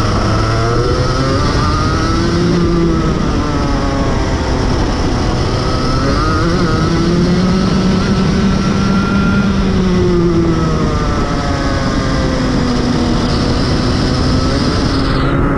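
Rotax Max Evo 125cc two-stroke kart engine heard onboard, its pitch climbing as it accelerates along the straight and falling away as it slows for the corners, several times over, under a steady hiss.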